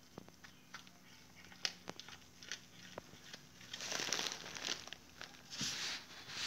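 Dry, crinkly rustling and scuffling from a cat tussling with a rat. Scattered light clicks and taps come first, then two louder bursts of rustling, each about a second long, in the second half.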